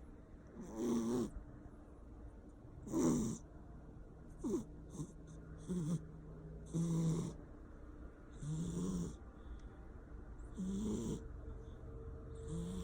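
Persian cat snoring in its sleep, a hoarse, buzzing snore on each breath, repeating about every one and a half to two seconds.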